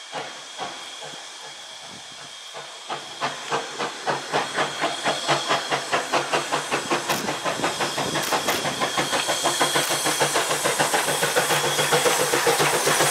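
Steam tank locomotive getting under way, its exhaust chuffing in an even rhythm that begins about three seconds in and grows louder and a little quicker as it comes closer. A steady steam hiss runs underneath.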